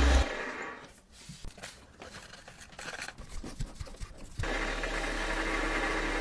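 A small electric power tool cuts off at the start, followed by about four seconds of scraping and rubbing with a few light knocks. The motor tool then runs steadily again for about two seconds from roughly four and a half seconds in.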